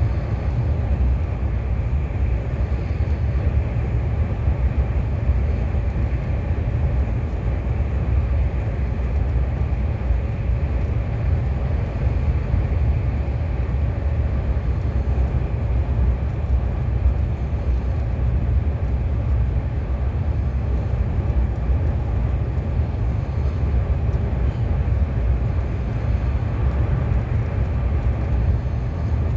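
Steady low rumble of a KTX high-speed train running, heard from inside the passenger car.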